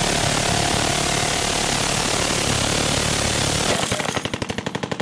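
Multi-barrel rotary minigun firing a long burst, its shots blurred into one continuous buzz. About three-quarters of the way through it gives way to a run of distinct shots in quick succession.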